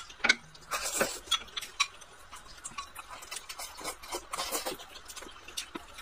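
Wooden chopsticks clicking and scraping against a glass rice bowl as rice is shoveled into the mouth: a run of irregular light taps, thickest in the second half, with chewing between them.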